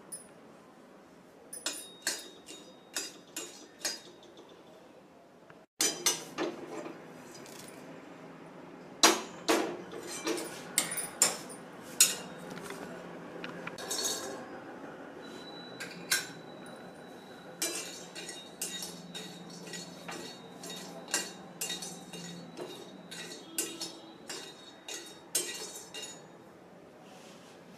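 Dry whole spices such as star anise, and small steel utensils, clinking and knocking against a steel kadhai as they are tipped in and roasted: a long run of sharp, irregular clinks, with a brief break about six seconds in and a faint steady low hum after it.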